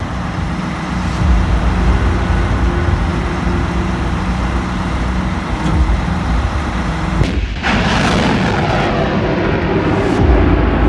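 A military rocket-launcher truck's engine runs steadily while the launcher raises its rocket pod. About seven and a half seconds in, this gives way to a rocket launching: a louder, dense rushing roar.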